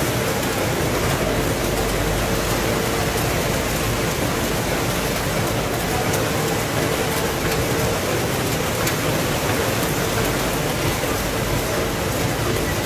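Steady running noise of factory machinery along a conveyor packing line: an even rush with a faint steady hum and a few faint clicks.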